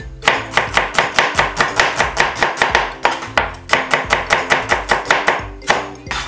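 Kitchen knife rapidly slicing an onion on a cutting board, the blade hitting the board about four to five times a second, with a short break about halfway.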